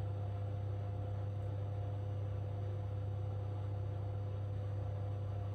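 A steady low electrical hum with a few faint, steady higher tones above it. It does not change at all, and there is no sound from the pastry being wrapped.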